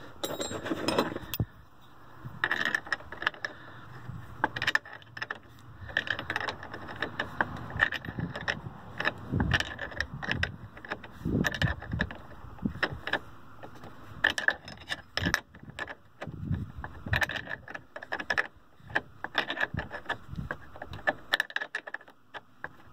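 A 9/16 open-end wrench clinking on a 3/8 brass barbed fitting in short strokes as the fitting is screwed into a tapped hole in a plastic radiator tank: irregular metallic clicks and scrapes.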